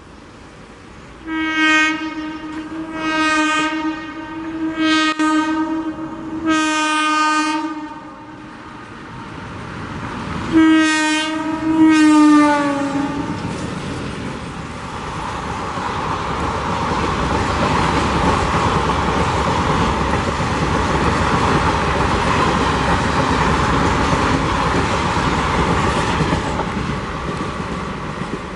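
Low-tone horn of an Indian Railways WAP4 electric locomotive, sounded as about five honks, the last dropping in pitch as the locomotive passes. Then the passenger train rolls past steadily, easing off near the end.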